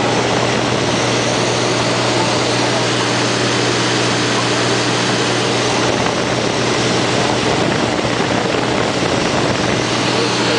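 Cessna 210's six-cylinder piston engine and propeller running steadily at power, a loud, even drone heard from inside the cabin.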